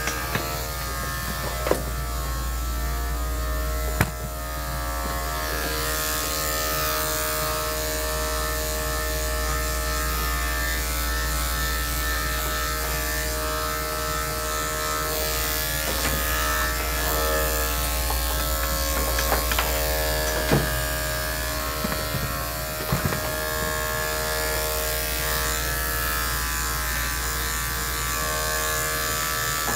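Electric dog-grooming clippers running steadily with a motor hum as they are worked through the dog's coat, with a few brief clicks along the way.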